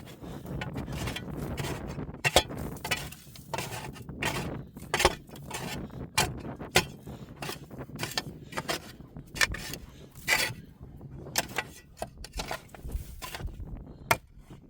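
Irregular clicks and knocks, a few sharper than the rest, over a low rumble that fades after the first few seconds.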